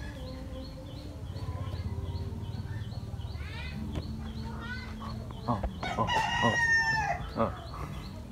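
A rooster crowing once, a long call about six seconds in, with shorter chicken calls before it, over a low steady background hum.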